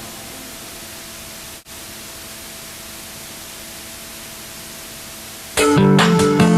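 Steady, even static-like hiss with a faint steady hum tone, cutting out for an instant about one and a half seconds in. A song with strummed guitar starts loudly near the end.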